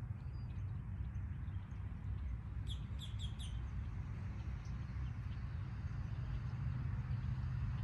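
A small bird chirping: a few faint chirps, then four quick high chirps about three seconds in, over a steady low rumble.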